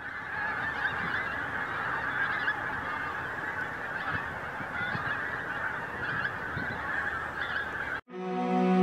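A large flock of wild geese honking in flight, many calls overlapping into a continuous chorus. About eight seconds in the calls cut off abruptly and music begins.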